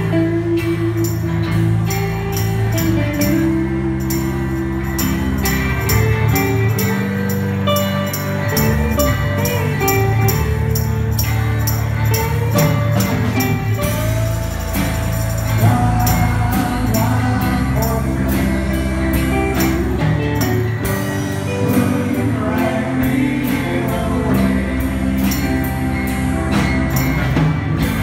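Live rock band playing a slow song on electric and acoustic guitars, bass and drums, with a steady high ticking beat running through it.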